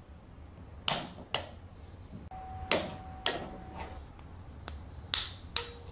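Click-type torque wrench on the 4 mm crankcase screws of a 1/5-scale two-stroke engine, clicking as each screw reaches the set torque on the first 45 kg·cm pass. About six sharp clicks, roughly in pairs a couple of seconds apart.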